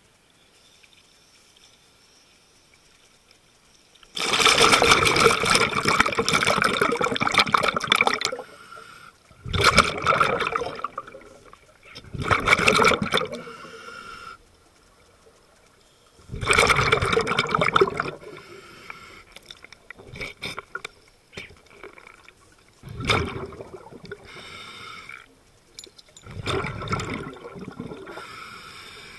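Scuba bubbles rushing and crackling underwater, coming in bursts: a long one of about four seconds starting about four seconds in, then shorter one- to two-second bursts every few seconds, the rhythm of a diver exhaling through a regulator.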